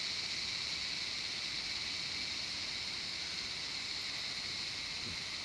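Steady, unbroken high-pitched insect drone, which the uploader takes for wood-boring beetles.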